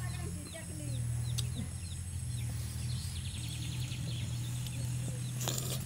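Birds chirping and a hen clucking in the background over a steady low hum, with a few sharp clicks and a short rustling burst near the end.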